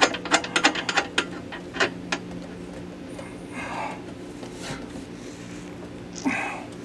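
Quick irregular clicking, about four clicks a second, from a hitch bolt and nut being fitted by hand; it stops about two seconds in. After that there is a steady low hum with a few soft rustles.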